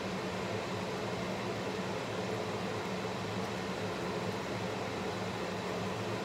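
Kitchen range hood exhaust fan running: a steady hum with a rush of air.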